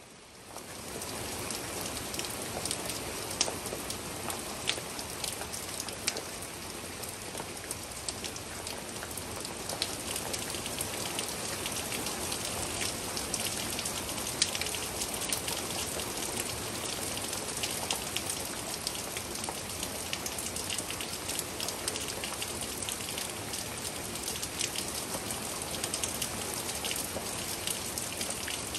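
Steady rain falling, with many single drops ticking sharply on a surface.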